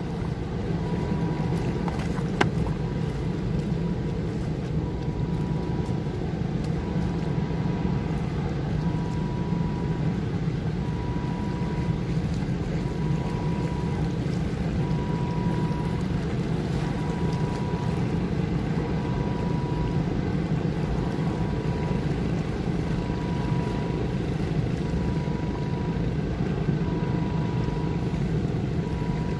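Steady low mechanical rumble, like engines or heavy machinery running, with a faint high tone sounding on and off at a regular pace throughout and a single short click a couple of seconds in.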